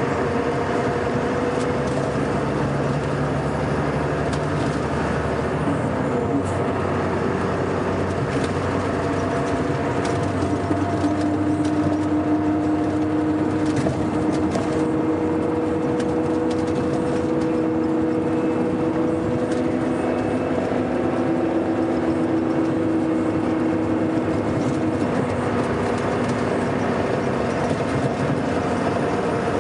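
Scania K420 coach's diesel engine running steadily under way, its drone holding several steady tones that drift slightly in pitch with engine speed.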